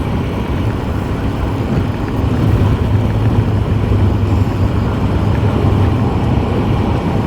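Steady road and engine noise inside a moving vehicle's cabin, a low rumble with a droning hum that grows slightly louder about two seconds in.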